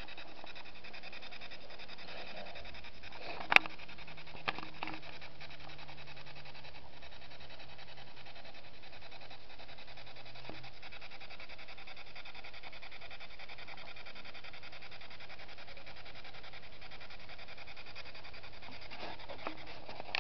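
Spirit box radio sweeping through stations, giving a steady hiss of static. A sharp click comes about three and a half seconds in, and a smaller one about a second later.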